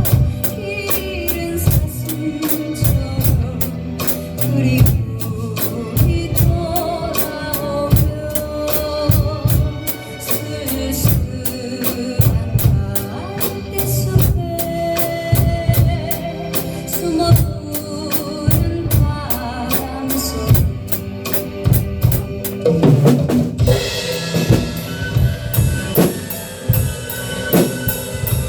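Drum kit played along to a song's instrumental backing track: a steady kick and snare beat under a melody line. About 23 seconds in, a cymbal crash comes in and keeps ringing.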